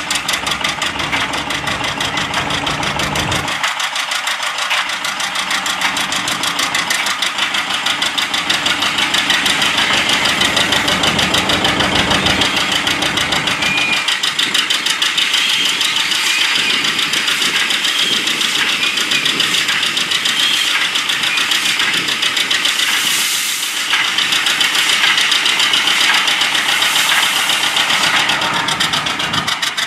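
John Deere 830 two-cylinder diesel tractor running steadily under belt load, turning over the big Buckeye oil engine in an attempt to start it; the engine is being cranked but is not firing, and the drive belt is slipping heavily.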